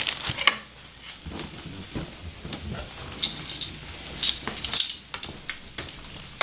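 Scattered light clinks and taps of metal kitchen utensils against a pan and dishes, a dozen or so short knocks at irregular intervals.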